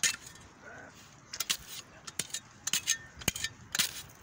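Metal hand trowel stabbing and scraping into frozen, clumpy soil: a string of sharp gritty scrapes and clinks, thickest in the second half.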